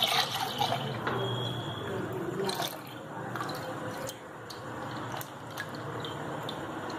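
Milk pouring in a thin stream from a plastic milk packet into a stainless steel pot, splashing into the milk already there, with a few light clicks.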